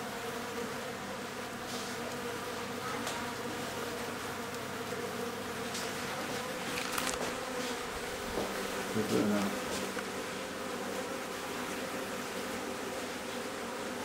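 Honeybee colony buzzing, a steady dense hum of many bees on open comb in a wall cavity, with a few faint light clicks.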